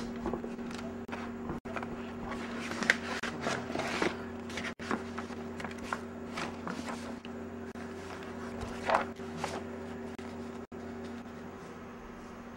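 Rummaging through papers and belongings by hand: scattered rustles and light knocks, the loudest about nine seconds in, over a steady low hum.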